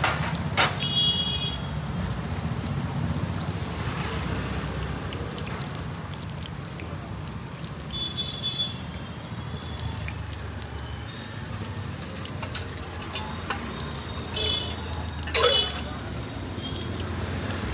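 Batter-coated raw banana slices sizzling and bubbling as they deep-fry in a large iron kadai of hot oil, over a steady low rumble. A few brief sharp sounds cut through, the loudest about fifteen seconds in.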